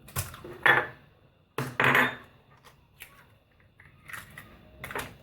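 Eggs cracked on the rim of a mixing bowl: a few sharp knocks and clinks, loudest in the first two seconds, then lighter taps.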